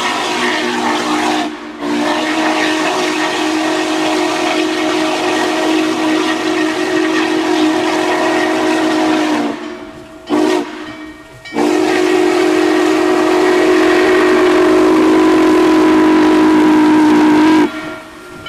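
Steam whistle of Norfolk & Western Class J 611, a 4-8-4 steam locomotive, blowing as it approaches. There is a brief break about a second and a half in, then a long blast, a short one, and a final long blast that grows louder and cuts off near the end, in the long-short-long pattern of a grade-crossing signal. Steam hiss runs underneath.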